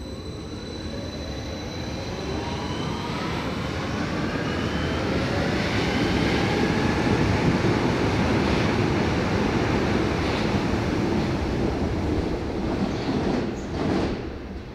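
Berlin U-Bahn small-profile train accelerating, its traction motor whine rising steadily in pitch over several seconds while the wheels rumble on the rails and the sound grows louder. A few knocks come near the end.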